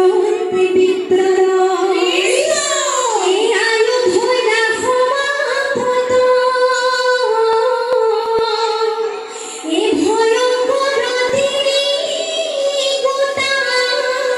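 Young women singing an Assamese dihanam (devotional nam) without instruments, with long held notes and sweeping slides up and down in pitch. The singing breaks off briefly about nine and a half seconds in, then resumes.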